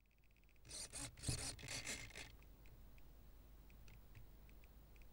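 Rubbing and scraping handling noise on a model Spitfire, picked up by its onboard cockpit camera: a run of short rasps over about a second and a half, then a faint steady hum with light, irregular ticks.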